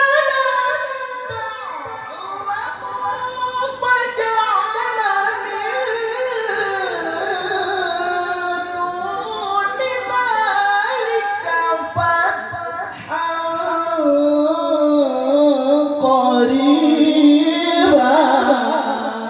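Qur'an recitation (tilawah) by a single reciter through a PA sound system, sung in long, held, richly ornamented melodic phrases.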